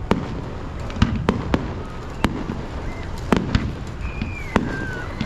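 Fireworks going off in an irregular series of sharp bangs, about two a second.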